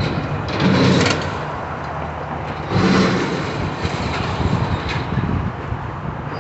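Heavy demolition machinery's diesel engine running with a low rumble, with two louder, harsher noisy surges about one second and three seconds in.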